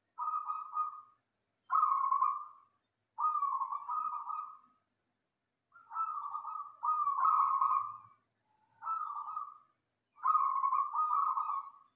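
Zebra dove (perkutut) cooing: a series of short coo phrases, each under a second, repeated about every one to two seconds, with a slightly longer pause about five seconds in.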